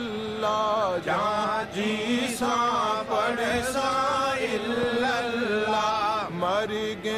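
Men chanting a devotional Punjabi refrain in a slow, drawn-out melody, with long held notes.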